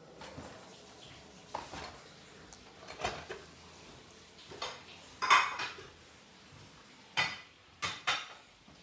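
Dishes and utensils clattering, a series of separate sharp clinks and knocks with some ringing, the loudest about five seconds in.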